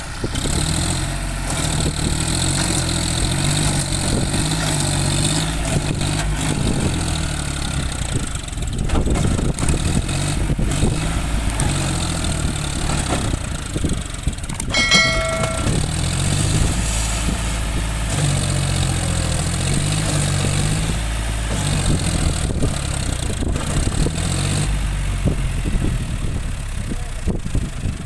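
John Deere 5042D tractor's three-cylinder diesel engine running hard under load, its pitch rising and falling, as it strains to pull a loaded trolley out of deep mud. A short chime sounds once about halfway through.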